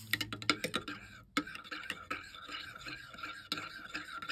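Metal spoon stirring hot cocoa in a ceramic mug, clinking against the sides several times a second, with a brief pause a little over a second in and the liquid swishing as the stirring goes on.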